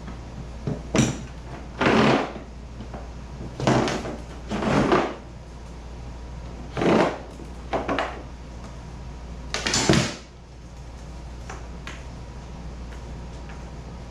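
Irregular bursts of scraping and clattering, about seven in all and each about half a second long: hand tools and foot-brace hardware being handled and worked on the kayak.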